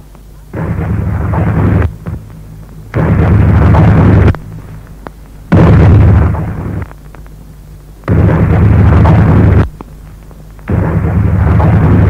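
Electronic voice phenomenon tape clip played five times over: loud, rough bursts of static-like noise about one and a half seconds each, with a steady low hum underneath. The clip is claimed to hold a spirit voice saying 'Konstantin, arbeiten'.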